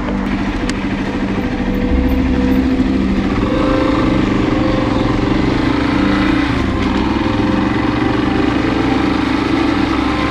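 Yamaha Serow 250's single-cylinder engine running, getting louder about two seconds in.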